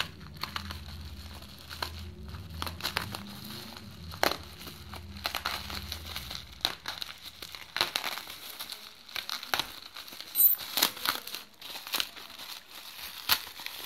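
Bubble wrap around a parcel crinkling and crackling irregularly as hands pull tape off it and work it open.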